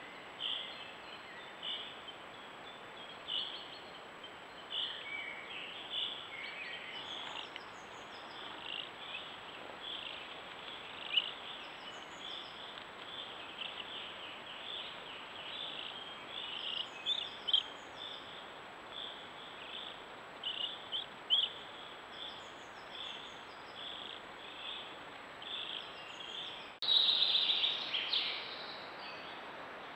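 Small songbirds chirping and singing in short high phrases over a steady background hiss, with a louder, nearer burst of song near the end.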